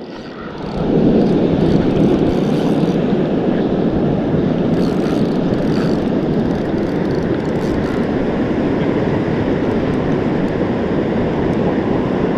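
Steady roar of surf breaking on the beach, mixed with wind on the microphone. It swells up in about the first second.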